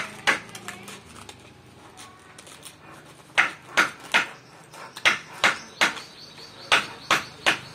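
Scissors snipping through a sheet of P100 sandpaper: one sharp cut right after the start, then after a pause three quick runs of three snips each, the snips about a third of a second apart.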